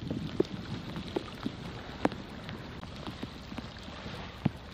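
Wind rumbling on the microphone outdoors, with scattered sharp taps and ticks every half second or so.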